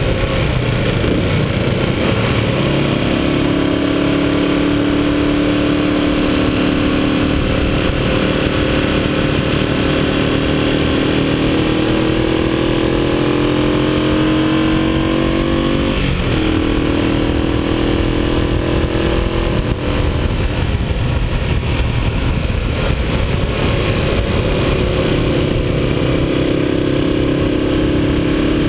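Vintage motorcycle engine running at road speed, heard over heavy wind noise on the camera. The engine note climbs steadily in pitch, breaks off and drops about halfway through, then runs lower and is mostly buried by the wind before it comes back near the end.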